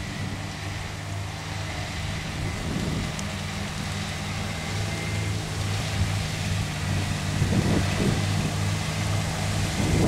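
Diesel locomotive of an approaching freight train running with a steady, low, slightly pulsing drone that grows slowly louder as it nears.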